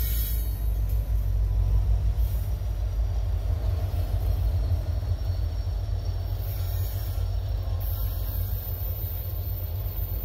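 Montana Rail Link diesel locomotives running as they pass and pull away along the track, a deep, steady engine sound that slowly fades.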